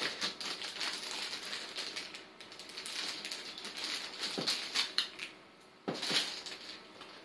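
Clear plastic bag wrapped around a telescope tube being handled and pulled open, crinkling and crackling irregularly, with a few sharper, louder rustles about four and a half and six seconds in.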